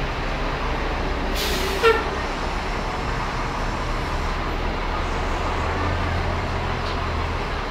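Downtown street traffic running steadily, with a short loud hiss about two seconds in and a low engine drone from about four seconds in until near the end.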